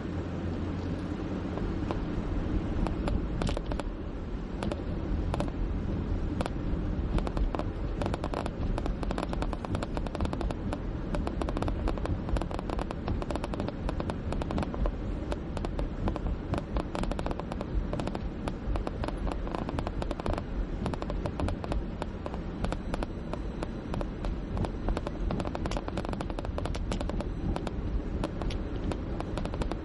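Steady low road and engine noise heard inside a moving car. From about three seconds in, rapid irregular clicking and crackling joins it as the car drives over rough, cracked and patched pavement.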